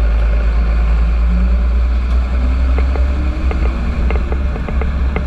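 Fire engine on the move, its engine running with a deep steady rumble that rises slightly in pitch partway through. Light clicks or rattles come through from about halfway on.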